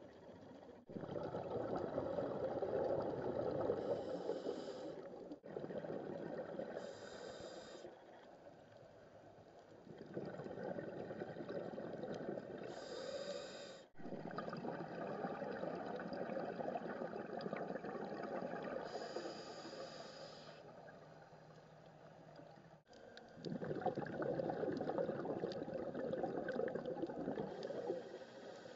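Scuba diver breathing through a demand regulator, heard underwater: short high hisses of inhaling and long bubbling exhales lasting several seconds, repeating several times.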